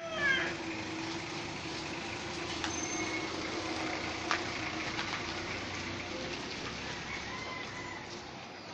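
Village street ambience: a steady low hum, probably an engine, under a light background hiss, with scattered faint clicks and knocks. A short call with falling pitch is the loudest moment, right at the start.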